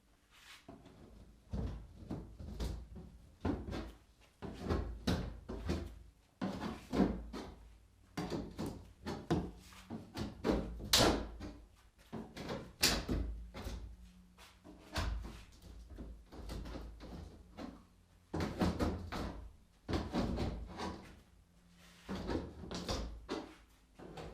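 Irregular knocks, clunks and scrapes of a wooden shipping crate being worked open and its parts handled, several sharp knocks coming close together at times.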